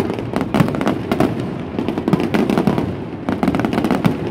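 Fireworks display going off in a rapid, continuous barrage of loud bangs and crackles.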